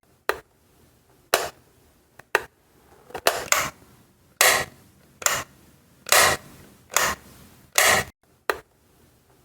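Light switch being flipped on and off: about a dozen sharp clicks, roughly one a second, irregularly spaced.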